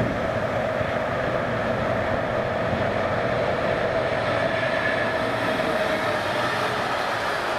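Electric freight train of container wagons rolling across a steel-girder railway viaduct: a steady rumble of wheels on the rails, with a steady humming tone through it.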